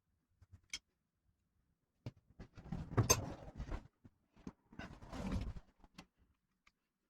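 Workshop handling noises from assembling an engine on a stand: scattered clicks and knocks of tools and parts, with two short clattering stretches, about two seconds in and about five seconds in, then the sound stops abruptly.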